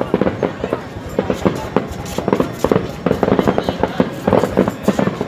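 Aerial fireworks going off in rapid, overlapping bangs and crackles, growing louder and denser a little past halfway.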